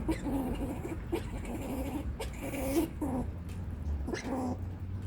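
A squirrel making its warning call, an angry string of about seven short calls that bend upward in pitch, with a few sharp clicks between them.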